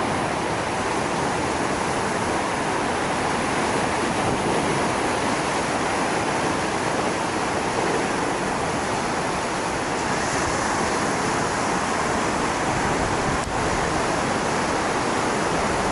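Steady, even rush of sea surf breaking in a bay, mixed with wind.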